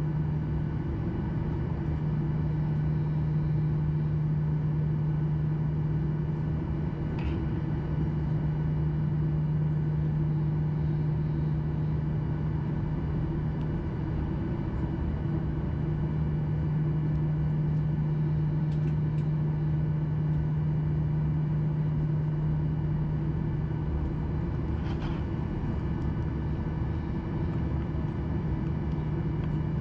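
Steady in-cabin drone of a Boeing 737-800 in flight: its CFM56-7B turbofan engines and the airflow over the fuselage, a strong low hum with steady higher tones.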